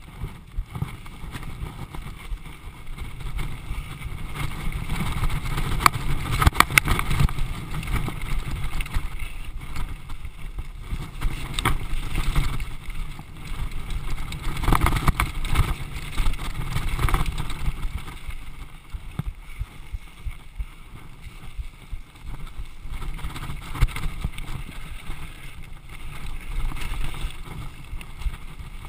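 Downhill mountain bike rattling and bumping down a rocky dirt trail, with tyre rumble under wind buffeting the camera's microphone. Sharp clatters from the bike hitting rocks stand out about six to seven seconds in and again around fifteen seconds.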